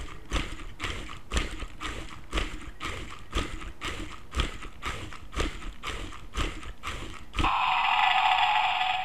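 Wooden Stegosaurus automaton walking on a hard floor, its wooden feet clacking in a steady rhythm about two times a second. About seven seconds in the walking stops and its built-in speaker plays a loud electronic dinosaur roar.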